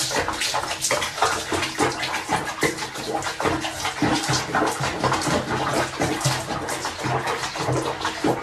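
Bathwater splashing and sloshing around a cat sitting in a foamy bath, in a dense, irregular patter of water noise.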